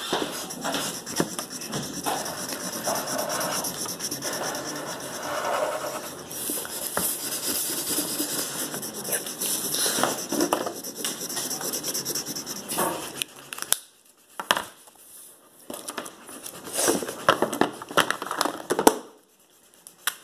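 Felt-tip marker scratching and rubbing on paper, stroke after stroke, stopping briefly a few times in the last seconds.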